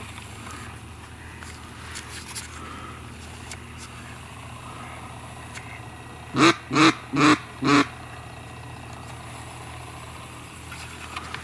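Four loud, evenly spaced mallard quacks, about half a second apart, a little past the middle, over a steady low hum.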